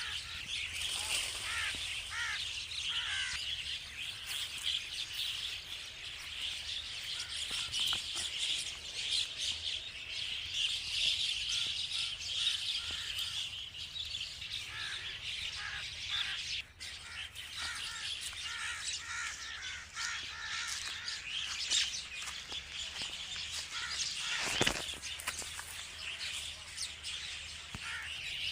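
Myna birds chattering and chirping continuously, many calls overlapping, with runs of short repeated notes. There is a brief thump a few seconds before the end.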